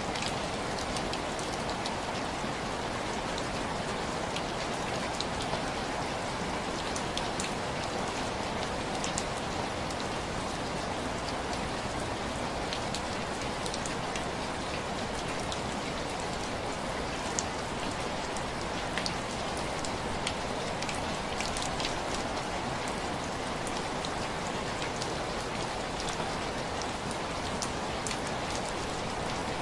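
Steady heavy rain falling, with scattered sharp crackles of a wood fire.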